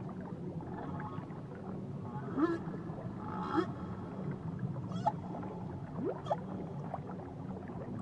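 Whale song heard underwater: a handful of short calls, each sweeping up in pitch, over a steady low underwater hum.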